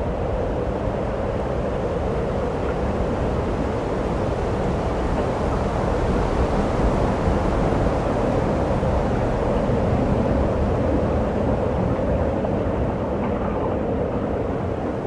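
Hurricane-force wind blowing hard and without let-up, a dense rushing noise with a heavy low rumble of wind on the microphone.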